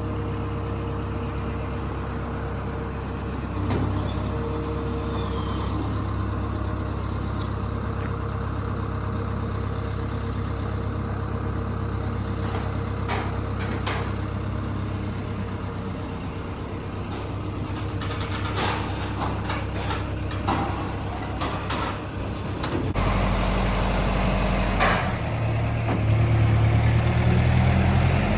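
Truck engine running at idle with a steady low drone, with scattered clicks and knocks in the middle. About 23 seconds in, the engine note changes and gets louder.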